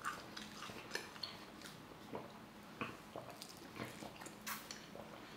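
Close-up eating sounds: chewing and wet lip smacks, with scattered light clicks at irregular moments.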